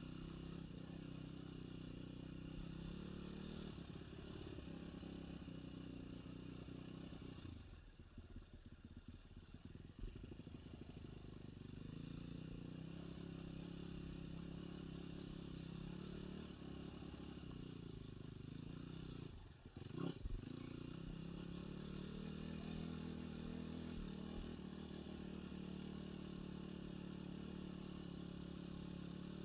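Enduro dirt-bike engine running at fairly steady low revs, easing off for a couple of seconds about eight seconds in, with a sharp clattering knock about twenty seconds in.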